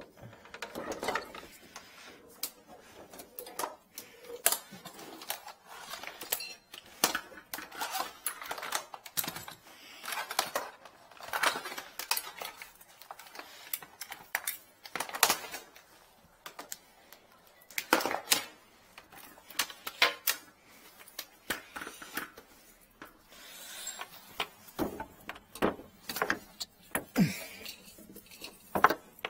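Plumbing tools and drain parts being handled: irregular clicks, knocks and light clatter.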